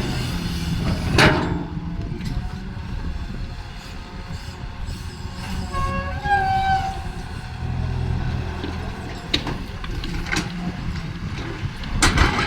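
Hydraulic excavator running and digging, its engine a steady low rumble, with several sharp metallic clanks at irregular moments.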